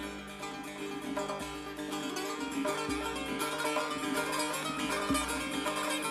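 Instrumental background music led by plucked strings, with a deep low note recurring every couple of seconds.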